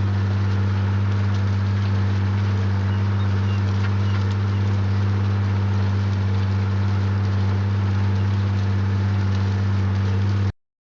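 Diesel engine of a farm tractor or combine running at a steady, unchanging speed under work, a constant low drone with a hiss of machinery over it, stopping abruptly near the end.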